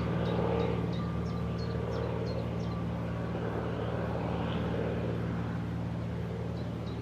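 A Lycoming IO-540 air-cooled flat-six aircraft engine on a TB 21 Trinidad running steadily at constant speed. A repeated high chirping sounds over it for the first few seconds and again near the end.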